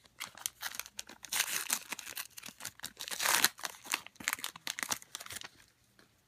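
Foil wrapper of a Prizm football-card retail pack being torn open and crinkled by hand, stopping about five and a half seconds in.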